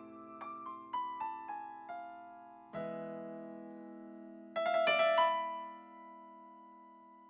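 Piano introduction to a song, with no singing yet: a few single notes stepping downward, then a chord struck about three seconds in and another with a few added notes around five seconds, each left to ring and fade.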